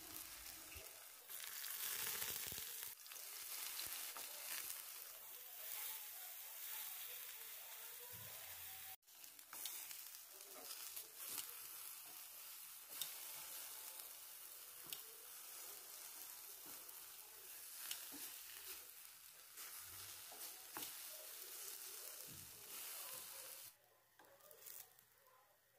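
Eggplant slices frying in a pan in a little vegetable oil: a faint, steady sizzle with small scattered crackles, which falls away shortly before the end.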